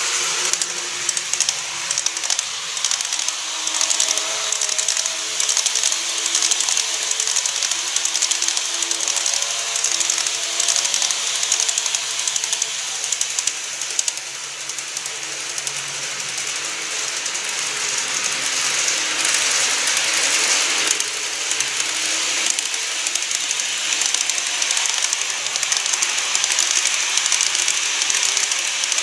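N-gauge model trains (KATO E259 series Narita Express and TOMIX 209 series) running on plastic viaduct track, giving a continuous fine clicking rattle of wheels over the rail joints with a hiss. A faint motor whine of a few steady tones sounds through the first half.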